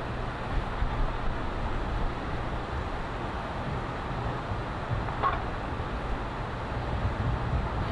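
Steady low rumble and rushing noise of surging tsunami flood water, with a brief faint higher tone about five seconds in.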